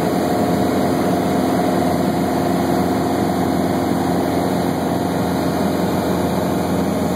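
Steady drone of an aircraft's engine heard from inside the cabin in flight: a constant hum of several even tones over a rushing noise, unchanging throughout.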